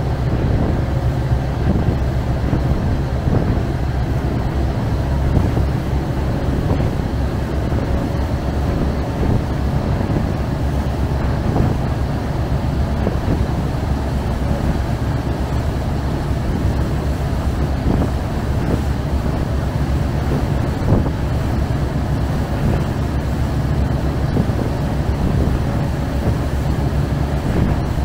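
Chao Phraya express river boat underway: its engine runs with a steady low drone while the hull and wake wash and churn the river water.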